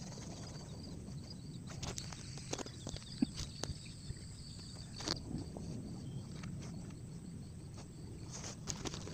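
Quiet outdoor ambience with a low rumble, and scattered light clicks and rustles of hands handling fishing tackle and bait. A faint, high, steady chirring runs through the first half.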